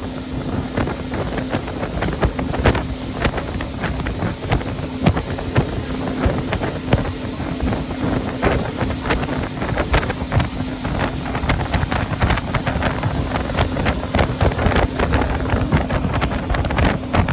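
An engine running at a steady drone, under heavy wind noise that rumbles and buffets the microphone with frequent thumps.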